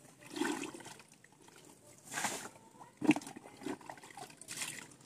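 Water splashing in several separate bursts, the sharpest about three seconds in.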